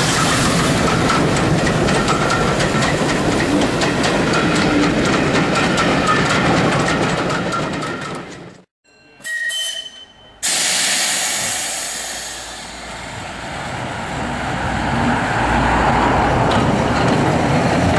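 Steam-hauled passenger train passing at speed, coach wheels clattering over rail joints with the engine's exhaust, until it cuts off abruptly about eight and a half seconds in. After a short gap with a brief tonal sound, a different steady rail-vehicle noise begins, fading and then swelling again.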